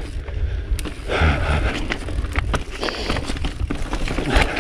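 Mountain bike riding down rough rock slabs: tyres rumbling over the rock, with frequent sharp knocks and rattles from the bike, louder from about a second in.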